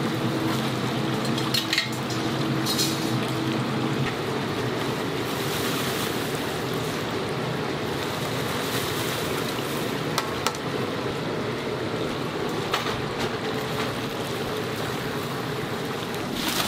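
Chicken deep-frying in a large cauldron of hot oil, a steady sizzle, with a few sharp metal clinks and knocks of utensils against the pot.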